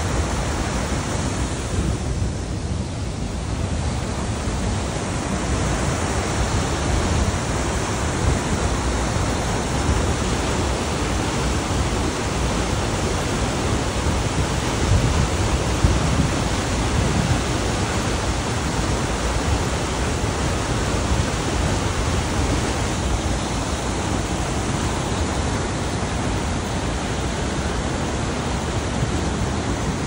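Waterfall and white-water river rapids rushing steadily, a dense even noise that is strongest at the low end.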